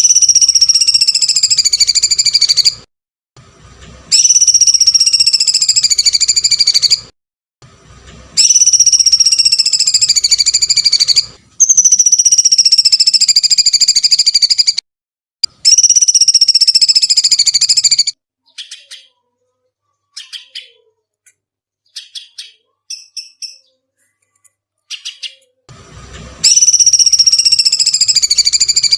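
Songbird master recording: a loud, high, shrill screeching call lasting about three seconds and falling slightly in pitch, repeated five times with short gaps. It is followed by scattered short chirps, then a sixth screech near the end.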